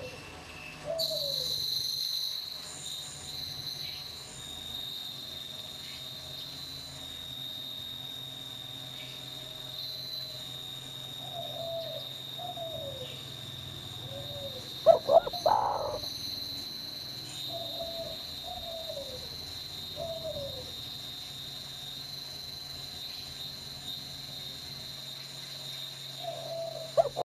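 Spotted dove (tekukur) cooing in short runs of falling notes, with a loud brief call about halfway through, over a steady high-pitched insect buzz.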